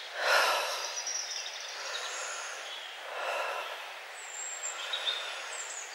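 Outdoor woodland background: a steady rushing hiss that swells twice, with a few faint bird calls.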